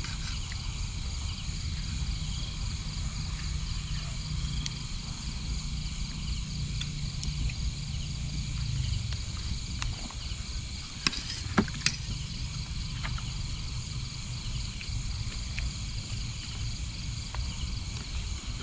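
Night-time chorus of insects and frogs, a steady high shimmer over a low rumble, with a few sharp clinks of utensils against dishes about two-thirds of the way through.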